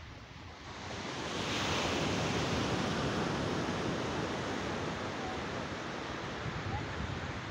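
Ocean surf washing on a beach, with wind on the microphone; the wash swells about a second in and then holds steady.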